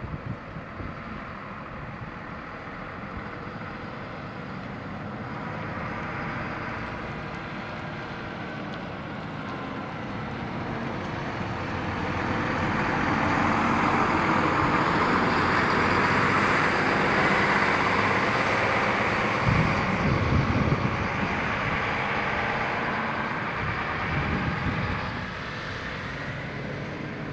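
A large coach bus drives past: its engine and tyre noise builds steadily, is loudest as it goes by close at hand, then fades as it drives away. Heavy low rumbles come in for a second or two just after it passes.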